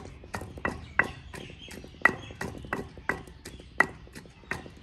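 Ginger being pounded in a kunda (mortar) with a pestle for masala: steady, evenly spaced knocks at about three strokes a second.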